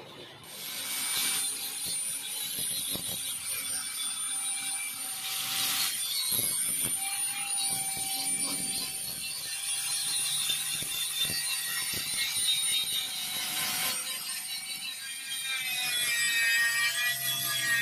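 Electric angle grinder with a sanding disc running against a Vespa scooter's steel body panels, stripping paint and filler. It sets in about half a second in: a steady high motor whine over a rasping scrape, the pitch wavering near the end as the disc is pressed harder.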